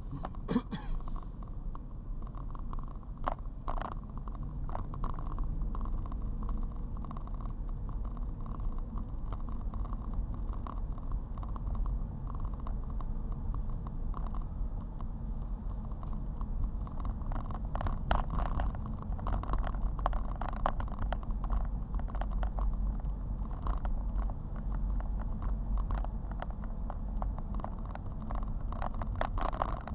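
Car driving on a wet road, heard from inside: a steady low road rumble with scattered crackles and ticks.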